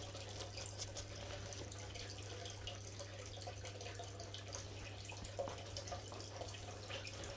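Faint steady background hum with an even, water-like trickling hiss, and a few small rustles and ticks from hands handling yarn and pothos leaves.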